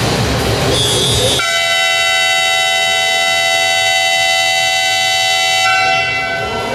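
Sports-hall horn sounding one long, steady blast of about four and a half seconds, starting about a second and a half in, over the noise of the crowd.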